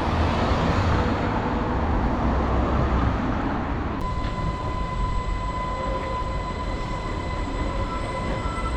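Island Line Class 484 electric train passing through the station: a rumble of wheels on the track, then from about four seconds in a steady electric whine.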